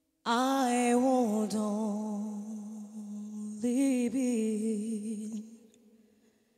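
A woman singing slow, drawn-out phrases with little or no accompaniment. She comes in just after the start, begins a second phrase about three and a half seconds in, and fades out near the end.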